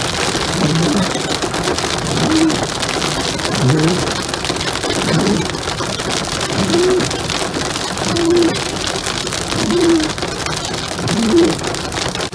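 Hail pelting the roof and windshield of a car, heard from inside the cabin as a dense patter of small ticks. The windshield wipers sweep about every second and a half, each pass adding a short low tone.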